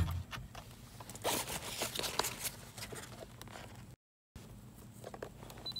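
Handling noise: rustling with small irregular scrapes and clicks as the OBD-II cable's plug is handled and fitted to a handheld scan tool. The sound drops out briefly about four seconds in.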